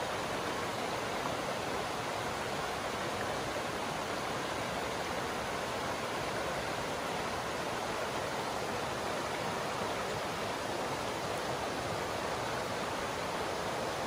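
Shallow mountain trout stream running over rocks and riffles: a steady rush of water.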